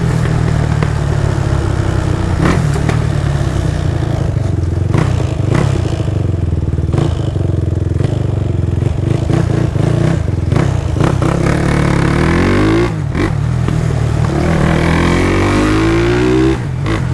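Tuned Honda Twister's single-cylinder engine, bored to 79 mm with a performance cam, running on ethanol through an open aftermarket exhaust while the bike is ridden. The engine pulls steadily, drops briefly about 13 seconds in, climbs in pitch as it revs up, and drops again near the end, as with throttle lifts for gear changes. The engine is being run in after the build.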